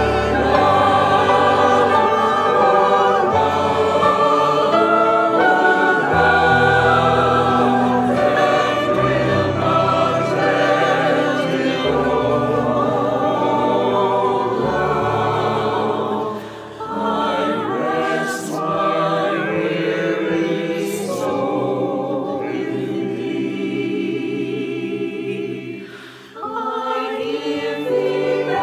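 Choir of men's and women's voices singing in harmony, over sustained low cello notes. The sound drops briefly twice between phrases, about halfway through and again near the end.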